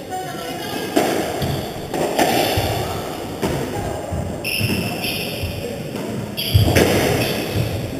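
Squash rally on a wooden-floored court, echoing: the ball hit by rackets and smacking off the walls, a sharp thud every second or so, with high squeaks of court shoes on the floor.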